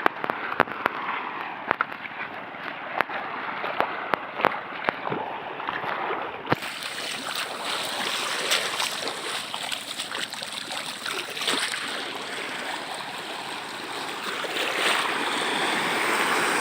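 Water rushing and washing at the shore, with a scatter of sharp clicks and knocks through the first six seconds; after a sudden change about six seconds in, a steady, fuller rush that swells near the end.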